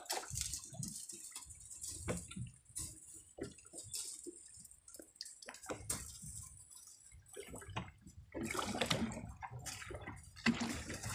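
Water slapping and splashing against the hull of a small boat in uneven, irregular strokes, louder near the end.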